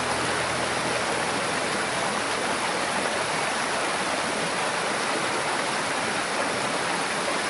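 Mountain stream rushing steadily over rocks and shallow riffles.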